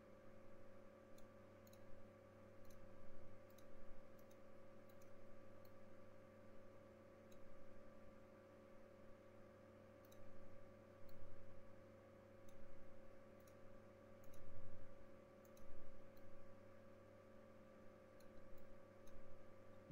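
Faint, irregular clicking from computer input at a desk, the clicks coming singly and in small clusters. Under it runs a steady electrical hum made of several fixed tones.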